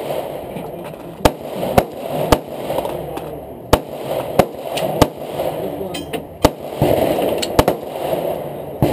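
Handgun shots, about ten sharp reports fired at an irregular pace, some less than a second apart, with a pair close together near the end.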